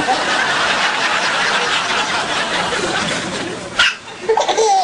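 A baby's single sharp hiccup near the end, followed at once by another baby's high, gliding giggles. Before it, a steady breathy noise of people laughing and chattering.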